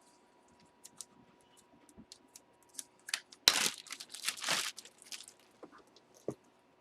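Plastic card packaging being handled: light clicks and rustles, then a louder burst of crinkling and tearing about three and a half seconds in that lasts over a second, then a few more rustles.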